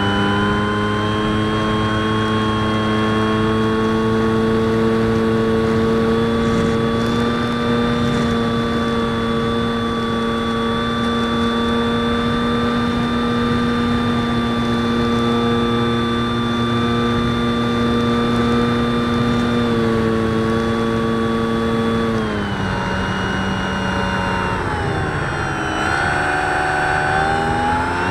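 Electric motor and propeller of a 2000 mm Super Skysurfer RC plane, heard from its onboard FPV camera: a steady whine over wind rush. About two-thirds of the way through, the pitch drops as the motor slows, dips lower, then climbs back near the end.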